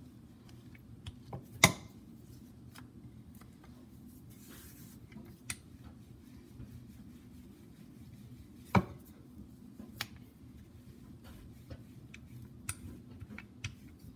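Wooden rolling pin working dough on a granite countertop: scattered light clicks and taps, with two sharp louder knocks, one near two seconds in and one about nine seconds in.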